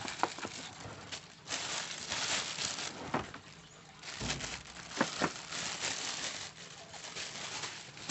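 Clear plastic wrapping crinkling in bursts as an air impact wrench sealed in it is handled and lifted out of its moulded plastic case, with a few sharp clicks.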